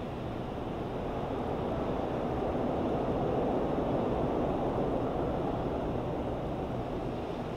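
Low, steady rushing rumble with no distinct strikes or tones, swelling gently through the middle and easing off again.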